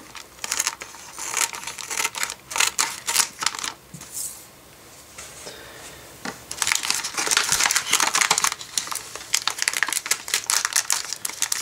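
Scissors snipping through a thin plastic polybag with sharp crackly clicks, then a quieter pause. From about six and a half seconds in, dense crinkling of plastic bags as the opened bag and the clear bag of LEGO pieces are handled.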